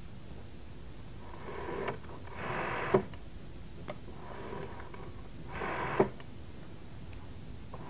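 Rotary telephone dial being turned and released: the spring-returned dial whirs back, each spin ending in a sharp click, the loudest about three and six seconds in.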